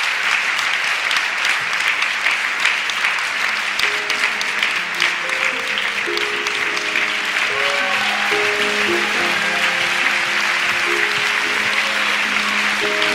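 Audience applauding steadily; about four seconds in, soft music with plucked guitar notes comes in beneath the clapping.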